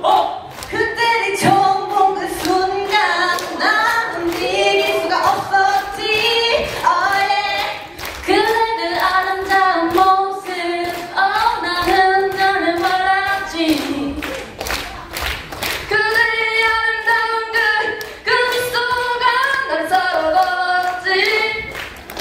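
A group of young women singing a song together into handheld microphones, amplified through a hall's sound system, with short breaks between phrases.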